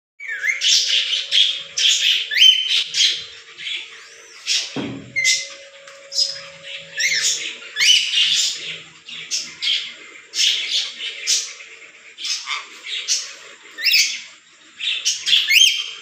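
Rainbow lorikeets giving a fast run of shrill screeches and chirps, many of them quick upward sweeps in pitch. A dull low knock comes about five seconds in.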